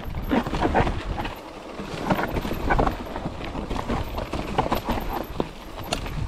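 Mountain bike rolling over a rough trail: an irregular clatter of knocks and rattles from the bike over rocks and roots.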